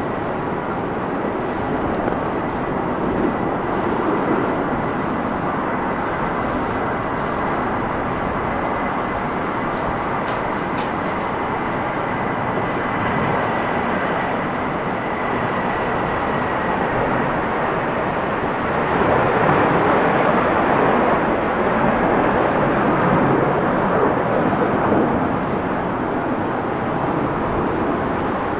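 Airbus A320-family twin-jet airliner at takeoff power: a steady, loud jet roar with a thin high whine over it. The roar swells louder about two-thirds of the way through.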